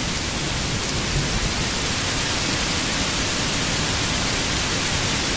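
Heavy rain as a steady, dense hiss, with a low rumble in the first second or so.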